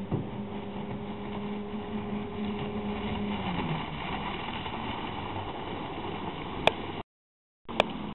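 1976 Johnson 9.9 hp two-stroke outboard motor running at speed, pushing a jonboat past. Its steady drone drops slightly in pitch and fades a little over three seconds in, giving way to a noisy rush. Two sharp clicks come near the end, where the sound also cuts out briefly.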